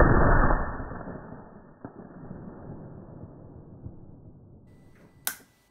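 A deep boom sound effect of an animated title intro, hitting hard and fading away in a long rumbling tail over about four seconds. A sharp click comes near the end.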